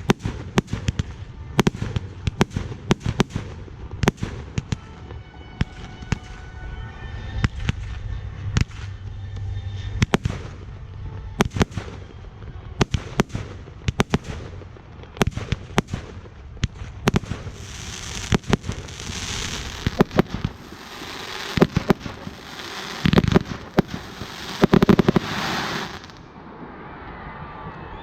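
Fireworks going off: an irregular string of sharp bangs and pops throughout. In the second half comes a loud hissing, crackling spray typical of fountain-type 'volcano' fireworks.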